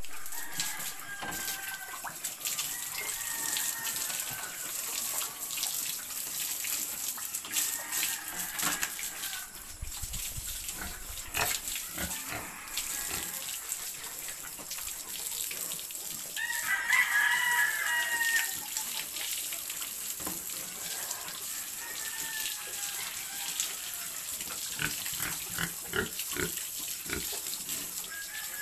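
Water from a hose spraying onto pigs and the concrete floor of their pen, a steady hiss, with pig grunts and squeals over it. A louder animal call lasting about two seconds comes around two-thirds of the way through.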